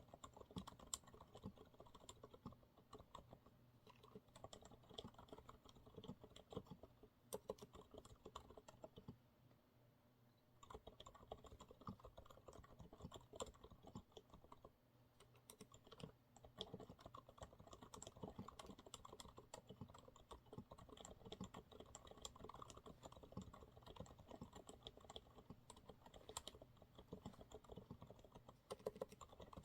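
Continuous typing on a Monsgeek MG108W mechanical keyboard with TTC silent brown switches: soft, muted keystrokes in a quick, irregular patter, with a short pause about ten seconds in.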